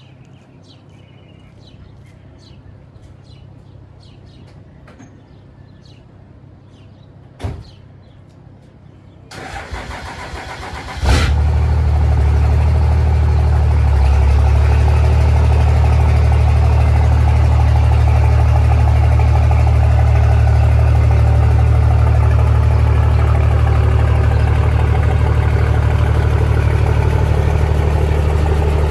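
A race truck's V8 engine is cranked over about nine seconds in, catches with a loud bang about two seconds later, and settles into a steady, loud idle. Before that there are only faint chirps and one sharp click.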